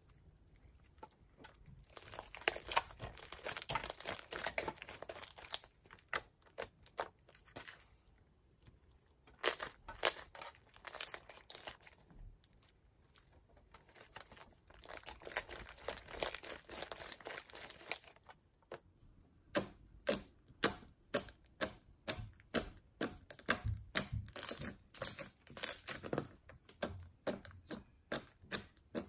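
Slime being squished and kneaded by hand, with bursts of wet crackling and small clicking pops. Past the middle it turns into a steady run of sharper pops, about two a second.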